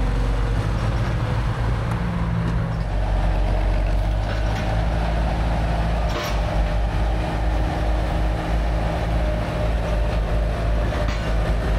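Heavy machinery running steadily with a deep engine drone, with a few brief metallic knocks, one sharper knock about six seconds in.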